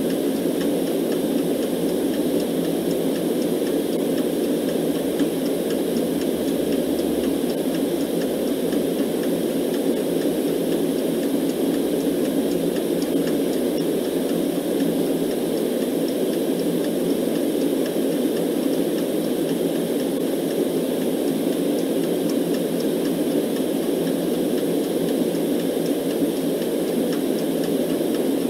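Steady, unchanging white noise: an even rushing hiss, fullest in the low-middle range.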